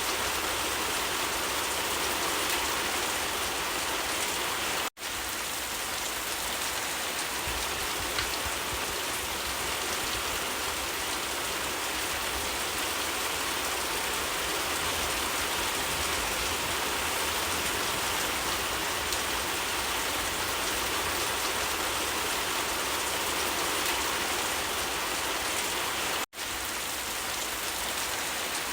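Steady rain falling on leaves, an even hiss of many drops, broken by two split-second dropouts to silence, about five seconds in and a couple of seconds before the end.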